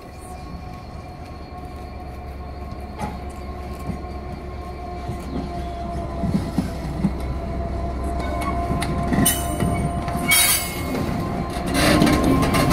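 GB Railfreight Class 66 diesel-electric locomotive 66781 approaching and passing close by, its two-stroke EMD diesel running with a deep low rumble that grows steadily louder. Hissing, metallic wheel-and-rail noise breaks in briefly about nine and ten seconds in, then again near the end as the locomotive draws level.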